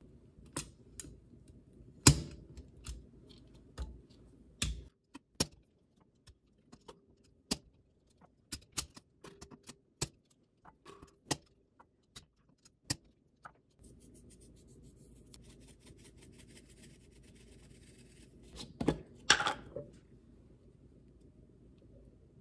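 Hard-boiled eggs being pressed through a wire egg slicer: a run of sharp metallic clicks and clacks as the hinged cutter snaps down and the pieces are pushed out. After that comes a faint steady hiss, with a louder clatter about 19 seconds in.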